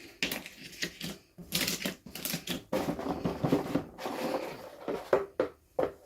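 Plastic toy packaging and small plastic pieces being handled and opened: an irregular run of sharp clicks, taps and crinkly rustles.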